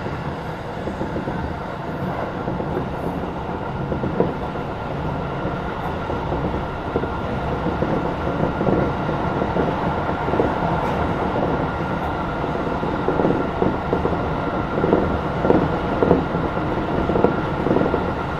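Tokyo Metro 16000 series electric train running along the track: a steady rumble of wheels on rail, with a run of rail-joint clicks from about ten seconds in.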